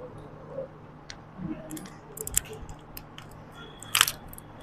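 Scattered light clicks and crackles from fingers working on an opened smartphone as its battery is being worked loose. The sharpest cluster of clicks comes about four seconds in.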